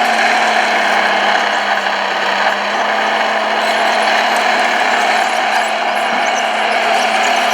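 Steady whirring of the small electric motors and gearboxes of radio-controlled model construction machines at work.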